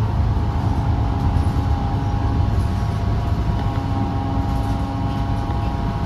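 Steady low rumble of a 2016 New Flyer XDE40 diesel-electric hybrid bus heard on board while it drives. Several steady whining tones sit above the rumble.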